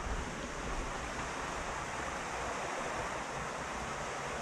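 Steady rushing of water running through a flooded coal mine tunnel.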